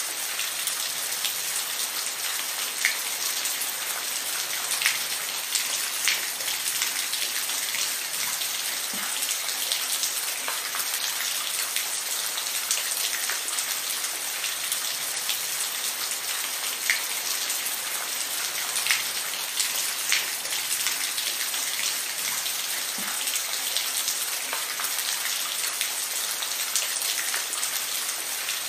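Steady rain falling, with single louder drop hits standing out every second or two.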